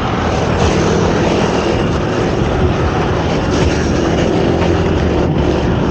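Steady rushing wind and road-traffic noise heard while riding a fixed-gear bicycle, with a low engine drone from motor vehicles.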